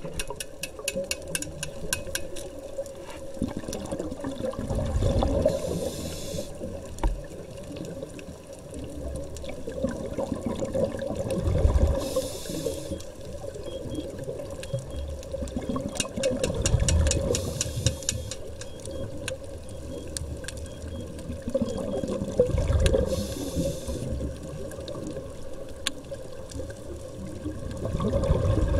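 Scuba diver's regulator breathing underwater: a short hiss on each inhale and a low rush of exhaust bubbles on each exhale, repeating about every six seconds. Sharp clicks come in clusters near the start and again about halfway through.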